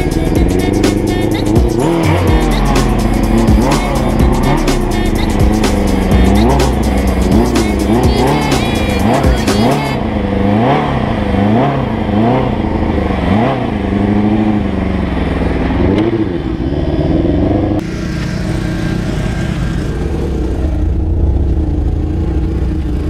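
Small stunt motorcycle's engine revving up and down in quick repeated throttle blips, about once a second, as the rider holds wheelies. Near the end it runs more steadily.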